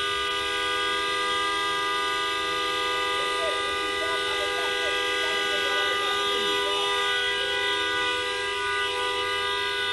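Several vehicle horns sounding at once in a steady, unbroken chord, with another tone joining about seven seconds in.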